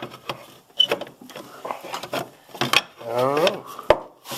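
Metal parts in a snowmobile's engine bay clicking and knocking as a stiff part is worked into a tight fit. A short squeak comes about a second in, and a voice is heard briefly around three seconds in.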